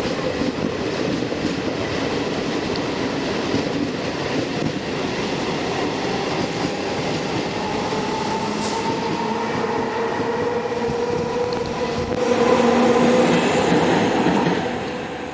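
Train running along the station tracks: a steady rumble of wheels on rail with a held whine that comes in around the middle, swells a few seconds before the end, then fades.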